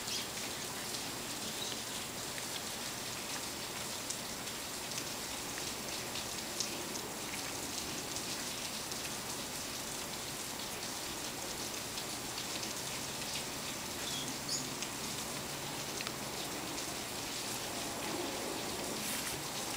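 Steady hiss, with a few faint clicks scattered through it.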